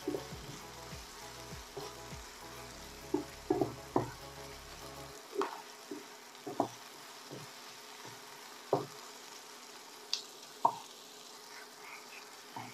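Chicken, onion and garlic sizzling in a nonstick frying pan as a wooden spatula stirs them, with irregular knocks of the spatula against the pan. A low hum underneath cuts off about five seconds in.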